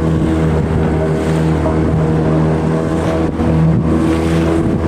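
8 HP Yamaha petrol outboard motor running steadily at cruising speed, with water rushing and splashing along the hull as the boat moves.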